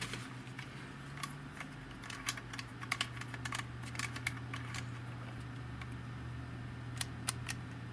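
Light plastic clicks and taps from a small Sony camcorder flash unit being handled and turned over in the hands, scattered and irregular, with a cluster about two to four seconds in and another near the end. A steady low hum runs underneath.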